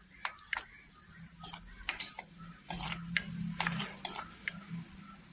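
A spoon stirring ginger and green chillies in a clay cooking pot, a string of irregular clicks and scrapes against the pot.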